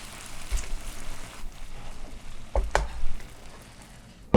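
Diced chicken breast sizzling as it fries in vegetable oil in a pan. The sizzle drops away after about a second and a half, and a few knocks follow near the middle.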